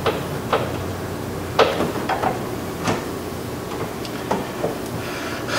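A few irregular, sharp light clicks and taps of metal parts and a hand working inside a car door shell, threading a 10mm bolt finger tight.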